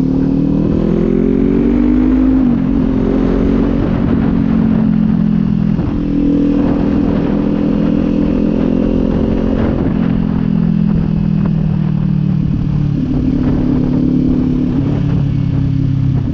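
2024 Kawasaki Z400's parallel-twin engine running through an aftermarket Leo Vince exhaust while riding. The engine note climbs over the first couple of seconds and drops about two and a half seconds in, then holds fairly steady. It dips again about ten seconds in.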